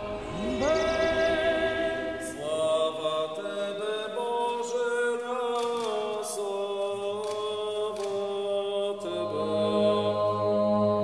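Unaccompanied Orthodox church chant: voices holding long notes that step up and down between pitches, with a low steady drone coming in near the end.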